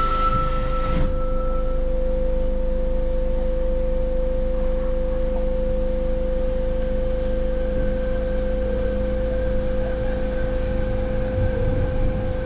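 Fukuoka City Subway 3000A linear-motor train running through a tunnel, heard from inside the car: a steady whine over a constant low running rumble.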